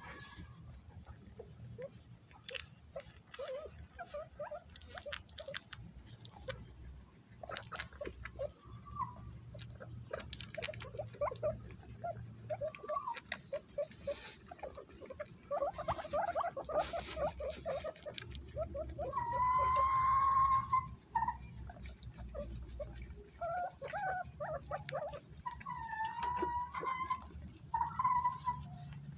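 Guinea pigs squeaking in quick strings of short calls while they scramble over banana, with scattered sharp clicks. About twenty seconds in, one gives a longer, high squeal, and a few more follow near the end.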